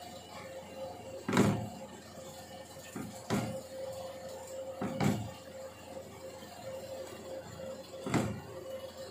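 A spatula stirring sliced onions, garlic and ginger frying in oil in a nonstick kadai, knocking against the pan four times, over a steady hum.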